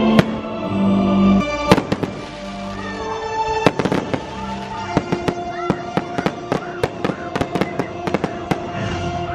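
Fireworks bursting at sea in a string of sharp bangs, turning to a rapid crackle of small pops from about halfway through, with the show's music playing underneath.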